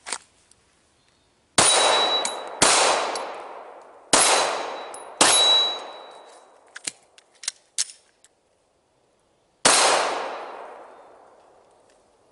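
Five pistol shots fired outdoors: two about a second apart, then two more a second apart, then a last one some four seconds later. Each echoes and dies away over a second or two, and a short high ring follows three of them. A few light clicks fall in the pause before the last shot.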